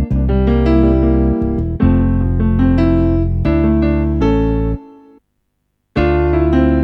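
Korg Krome keyboard playing a sound-pack patch: electric-piano-like chords over a heavy bass line, changing every second or so. The music fades out about five seconds in, breaks off for just under a second, then starts again.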